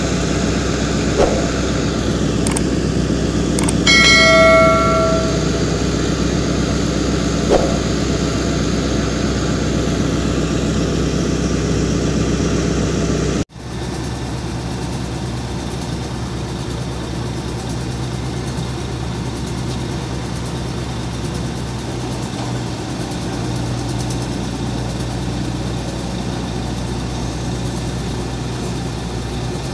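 Hydraulic excavator's diesel engine running steadily as the bucket tips concrete into formwork. About four seconds in, a single metallic clang rings for about a second, and there are two light knocks. About halfway through, the sound cuts abruptly to a different, slightly quieter steady engine drone.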